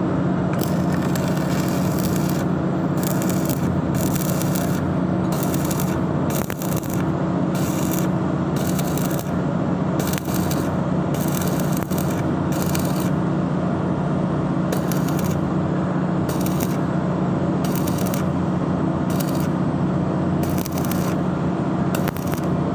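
Arc welding on a pipe: a continuous crackle from the arc over a steady low hum, running without a break.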